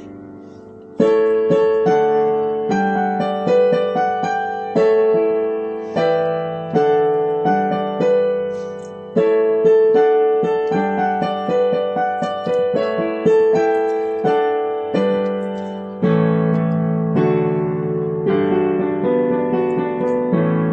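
Piano playing an instrumental passage: struck notes and chords, each dying away, starting about a second in after a brief pause.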